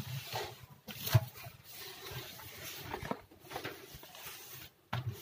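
Cleaning a stainless-steel kitchen sink: a cloth rubbing over the steel, with a few light knocks, the sharpest about a second in.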